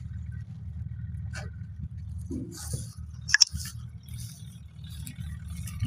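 Crunching on dry wheat stubble over a low steady rumble, with one sharp click about three and a half seconds in.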